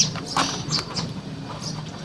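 Gloved hands pressing and scraping potting soil around the base of a cactus in a plastic pot: irregular gritty scratches and small clicks, with a sharp one at the start.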